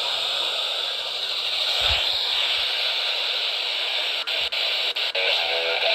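Radio static: a steady hiss from a receiver on a weak or off-station signal, cutting out briefly several times about four seconds in, with a faint signal starting to break through near the end.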